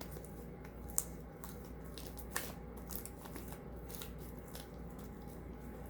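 Sticky slime, over-foamed with shaving foam, being kneaded and pulled apart by hand: faint crackling and clicking, with sharper clicks about a second in and again near two and a half seconds.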